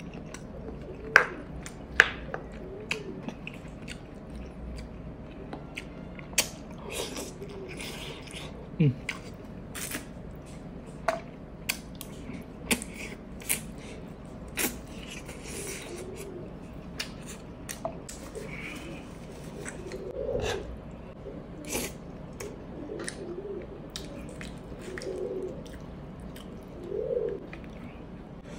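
Close-up eating sounds: chewing and mouth noises over misua noodle soup and rice, with sharp clicks of a metal spoon against the dish, the loudest about a second and two seconds in.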